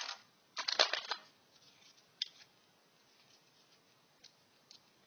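Loose metal screws rattling and clinking as they are handled: a short burst of clatter about half a second in, then a few faint single clicks.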